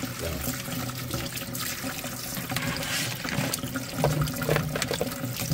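Tap water running steadily into a metal sink full of live crabs being rinsed by hand, with scattered light clicks and knocks.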